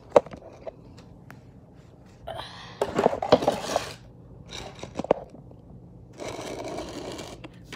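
Phone handled and repositioned against a hard surface: a sharp knock at the start, then clicks and two stretches of scraping and rubbing, one from about two to four seconds in and one near the end.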